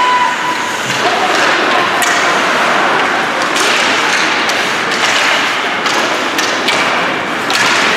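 Indoor youth team game in a large echoing gym: ball thumps and short squeaks over a steady crowd din.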